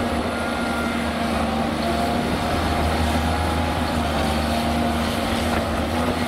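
Cat 330D crawler excavator's C9 diesel engine working under load with a steady whine as it digs a bucket of soil and swings it over a tipper truck.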